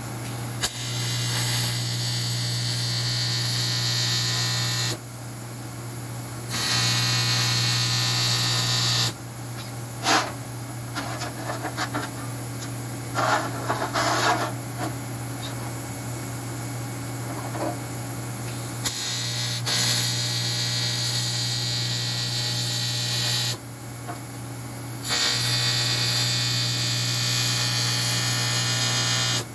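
Electric arc welding on aluminum: a steady buzzing arc in four runs of a few seconds each, with short clicks and scrapes in the pause between the second and third runs. Played at double speed.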